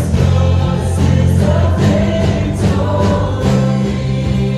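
A church worship band and congregation singing a slow worship song together, with held low bass notes underneath that change every second or so.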